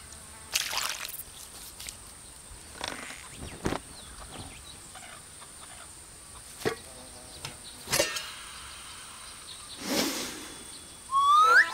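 Sparse animation sound effects: soft whooshes and a few light clicks, then near the end a long, deep sniff through the nose, followed by a quick rising whistle.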